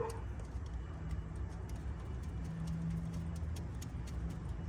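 Socket ratchet clicking in short irregular runs as a 13 mm ground bolt is worked loose, over a steady low hum.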